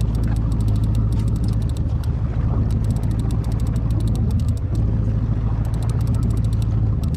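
Fishing reel being cranked, its gears clicking rapidly in runs with short pauses, over the steady low hum of a boat's engine.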